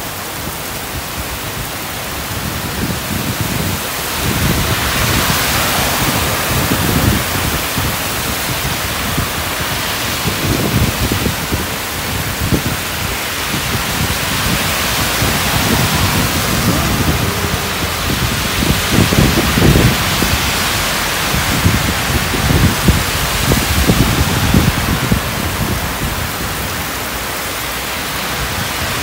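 Very heavy rain pouring steadily onto a road, with cars hissing through the standing water. Low rumbles swell and fade again and again, loudest about two-thirds of the way through.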